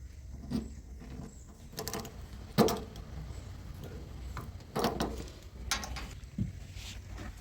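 Machinery running with a low steady hum, broken by several sharp clunks; the loudest is about two and a half seconds in, with more near five and six seconds.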